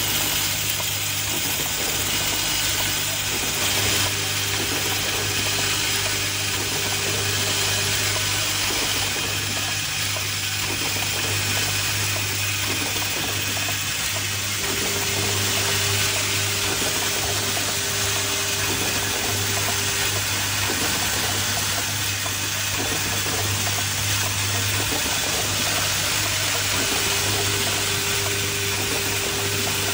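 Automatic hinge assembly machine running with its vibratory bowl feeders: a steady low hum under a constant rushing noise. A higher tone comes and goes three times.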